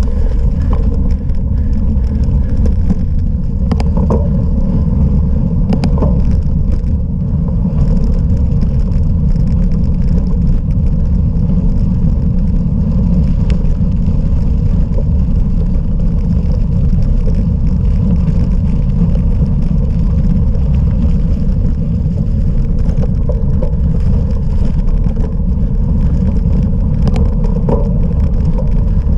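Steady loud rumble and rattle of a cyclocross bicycle ridden over rough off-road ground, with a few sharp knocks in the first six seconds.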